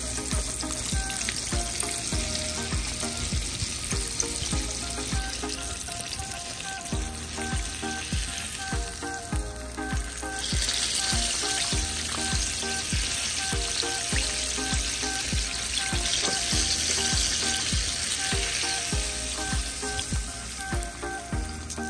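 Tilapia frying in hot oil: a steady crackling sizzle that gets louder a little before halfway through. Background music with a steady beat plays under it.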